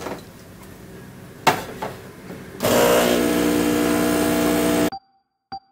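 Espresso machine's pump buzzing steadily for about two seconds, cut off abruptly, after a couple of knocks on the machine or counter. A short electronic tone sounds near the end.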